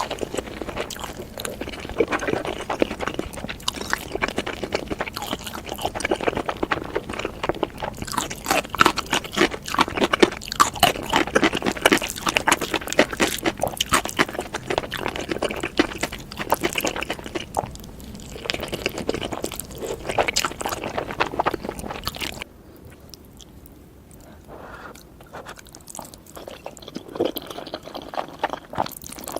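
A person chewing noodles close to the microphone: a dense run of small clicks from the mouth, which turn quieter and sparser about three-quarters of the way through.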